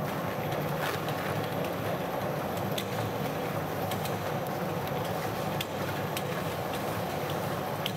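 Ring-type coil-wrapping machine running: its motor-driven ring turns steadily around a concertina razor-wire coil, wrapping it in fabric, giving a steady mechanical hum with a few scattered light clicks.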